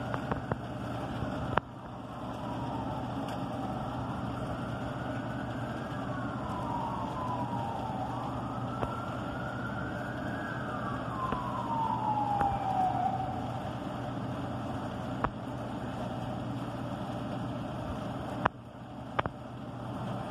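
Emergency-vehicle siren wailing, sweeping slowly up and down about twice and dying away about two-thirds of the way through, over a steady low rumble. A few sharp clicks stand out, the loudest near the start and near the end.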